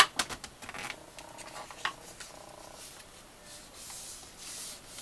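Stiff black cardstock being handled and folded on a scoring board: a few sharp paper clicks and taps, the loudest right at the start, then fingers rubbing along the scored fold to crease it.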